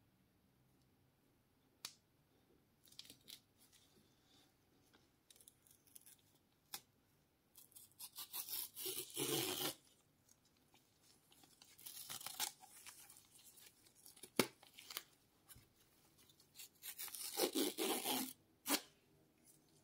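Tear strip on a Nothing Phone (1) box being pulled off, ripping the box's paper seal open in three stretches of tearing, the first about eight seconds in. Light handling clicks and taps come before it, and single sharp clicks fall between and after the runs.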